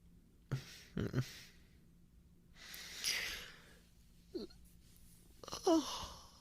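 A man breathing and sighing close to the microphone: soft rustles about half a second and a second in, a long breathy exhale about three seconds in, then two short voiced sighs falling in pitch, the louder one near the end.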